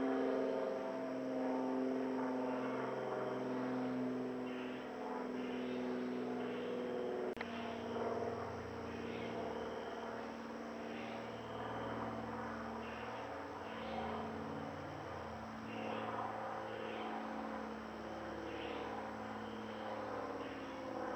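A steady mechanical drone made of several stacked tones that shift slightly in pitch now and then, like a distant engine, with night insects chirping in short bursts about once a second. A single sharp click comes about seven seconds in.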